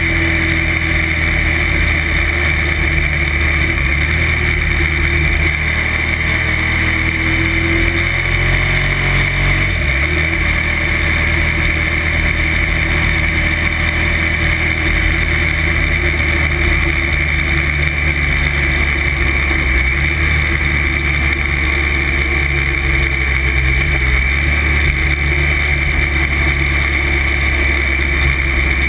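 Motorcycle engine running at road speed with wind rushing past the onboard camera; the engine note changes about ten seconds in, and the bike slows toward the end.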